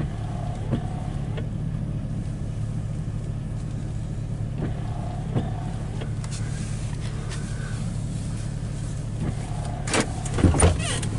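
Steady low hum of a vehicle's engine heard from inside the cabin, with a few faint ticks. Near the end, a cluster of knocks and rustles as the handheld camera is moved around.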